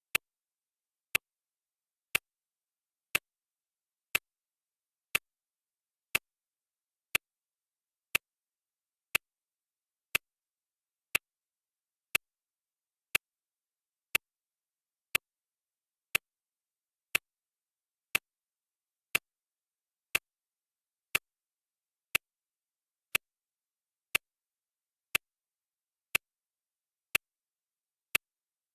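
Clock ticking, one sharp tick each second at a steady, even beat.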